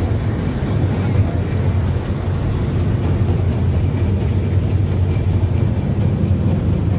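Toy train running, heard from aboard an open coach: a steady low rumble.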